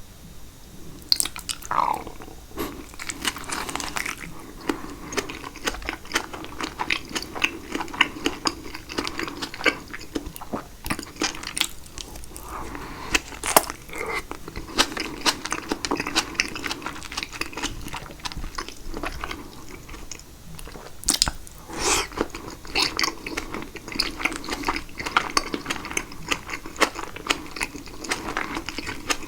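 Close-miked chewing and biting of caprese salad, with wet smacking and soft crunching of tomato, mozzarella and basil in balsamic dressing. There are irregular clicky mouth sounds throughout.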